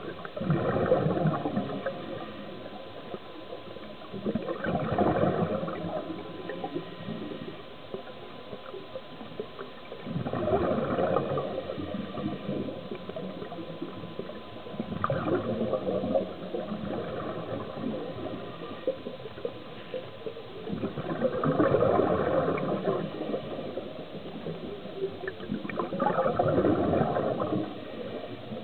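Scuba diver exhaling through a regulator underwater: a bubbling rush of exhaust bubbles about every five seconds, six breaths in all, with quieter water hiss between them.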